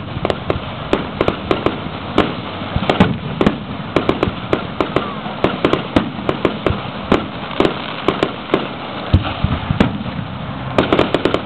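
Fireworks display: aerial shells bursting one after another, sharp bangs coming several a second at irregular intervals over a steady background noise.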